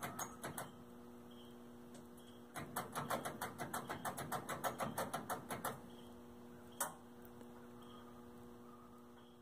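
Starter solenoid of a 1975 Massey Ferguson 285 tractor chattering in rapid clicks, about seven a second, as the key is held: a short run at the start, a longer run of about three seconds, then one lone click, with no cranking; the owner takes it for a blown solenoid. A faint steady hum lies underneath.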